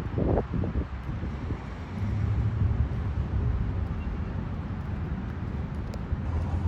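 Car driving: a steady low rumble of engine and road noise, growing stronger about two seconds in.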